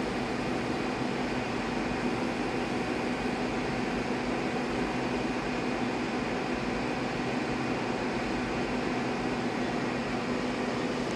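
Steady machine hum from a powered-up Brother TC-324N CNC drilling and tapping center standing idle, with a low steady tone and a faint high whine over even noise.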